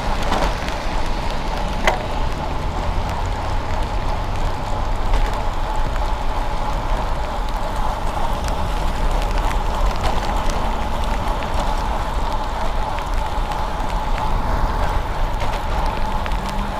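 Bicycle ridden on a rain-wet road: steady hiss of the tyres on wet pavement and a low rumble of wind across the microphone, with a thin steady whine and a single click about two seconds in.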